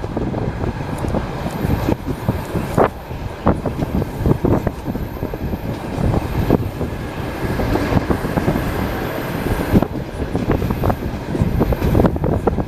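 Passenger train carriage rolling along the track: a steady rumble from the running gear with irregular knocks of the wheels over rail joints.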